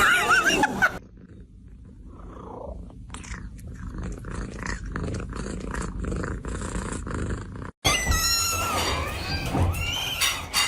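Domestic cat purring in soft repeated pulses. After a brief cut near the end come louder high, wavering calls.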